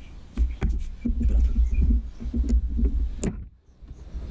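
Metal clicks and knocks of hand work on a minimoto engine as the water pump is unbolted with an Allen key and pulled free, over a low rumble. The sharpest click comes about three seconds in.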